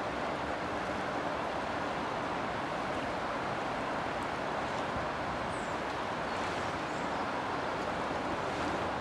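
Steady rushing of the Adige river in flood: fast, high floodwater running past a stone embankment, an even, unbroken noise. A few faint high chirps sound over it.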